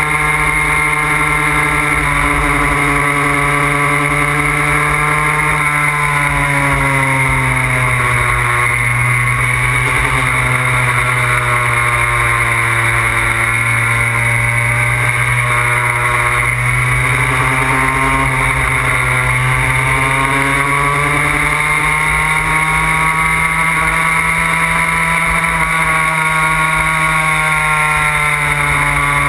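Puch Maxi moped's single-cylinder two-stroke engine running steadily at cruising speed, heard from the rider's seat. Its pitch sinks about six seconds in, stays lower for some fifteen seconds, then climbs back.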